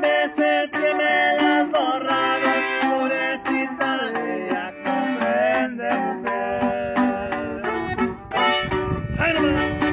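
Norteño duo playing an instrumental passage: a button accordion carries the melody over a strummed bajo sexto.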